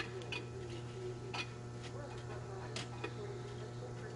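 A few sharp, irregularly spaced metal clicks and taps as an intake manifold and gasket are worked into place on a Detroit Diesel Series 60 engine, over a steady low hum.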